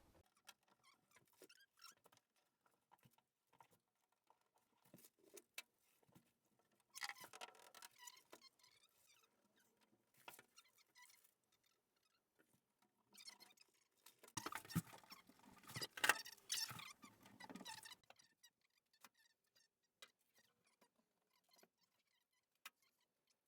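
Intermittent crinkling, rustling and light clicking of sound-deadening sheets being handled and pressed onto the van's bare metal side panel, with two louder bursts, about a third of the way in and again past the middle.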